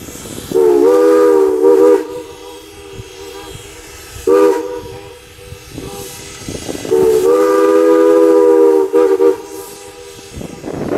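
Crosby three-chime steam whistle on Mogul steam locomotive No. 89 blown as a 'ghost whistle', a moaning chord that bends in pitch as it opens. Three blasts: a long one about half a second in, a short one about four seconds in, and a long one starting near seven seconds. Steam hiss and exhaust from the working locomotive fill the gaps.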